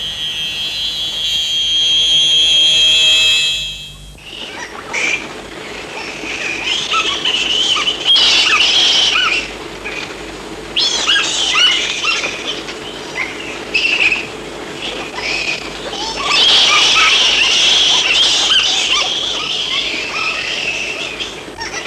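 A chord of steady held tones that cuts off about four seconds in, then a chorus of forest birds chirping and calling in overlapping bursts of short high notes.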